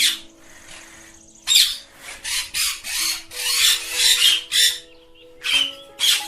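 Ringneck parakeets squawking: a run of short, harsh screeches, densest in the middle, over background music.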